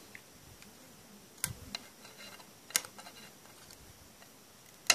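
Sharp clicks and small crackles from a cracked Samsung Galaxy S3 display being pried off its frame, its glue softened with isopropyl alcohol. Three louder clicks, the loudest right at the end.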